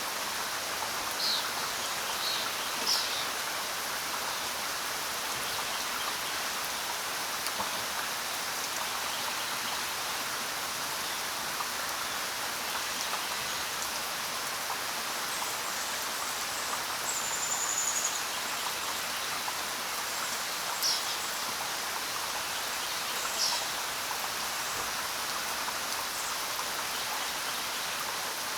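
Steady rainfall, with a few short, high bird chirps now and then and one brief falling whistle about two-thirds of the way through.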